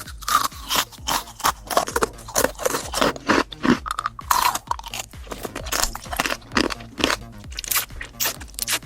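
Close-up chewing and biting of crunchy food: many sharp, irregular crunches in quick succession.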